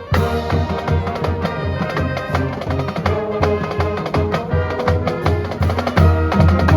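School wind band playing an upbeat arrangement: brass carries the tune over a steady drum beat. About six seconds in, the band grows louder with a heavier bass.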